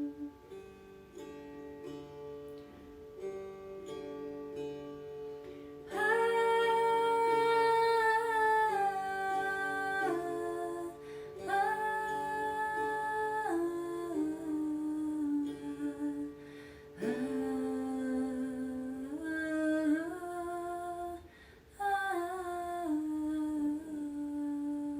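Meditation music: a plucked string instrument plays alone for about six seconds, then a voice joins, singing long held notes that step up and down in pitch, with brief pauses between phrases.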